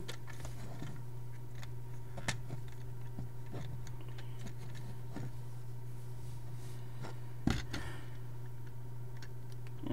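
Faint clicks of LEGO plastic pieces being handled and fitted onto a clock-face module, with two sharper clicks, about two seconds in and about three-quarters of the way through, over a steady low hum.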